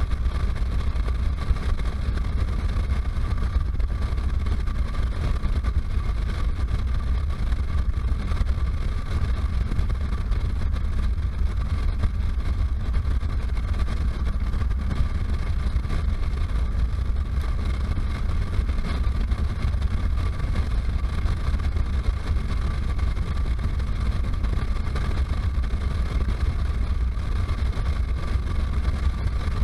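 Wind rushing over a helmet-mounted camera on a motorcycle riding at highway speed: a steady low rumble with the bike's running drone under it and a thin, level whine held high above.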